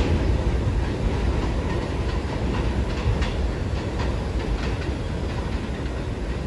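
R46 subway train running along an elevated steel track as it pulls away, with a steady rumble and irregular clicks of the wheels over rail joints.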